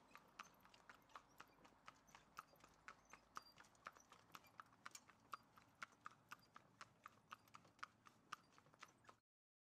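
Welsh section pony's hooves clip-clopping on a tarmac road as it pulls a carriage, a faint, even rhythm of about four hoofbeats a second. The sound cuts off suddenly about nine seconds in.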